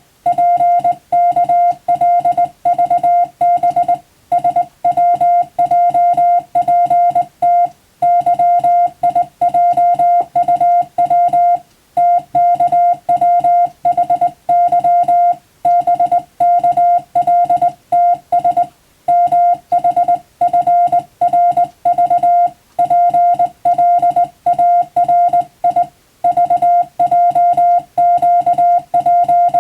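Morse code (CW) tone: a single steady-pitched beep keyed rapidly into dots and dashes, in runs of a few seconds with short gaps between words, sending English telegram text as practised for the radiotelegraph operator's exam.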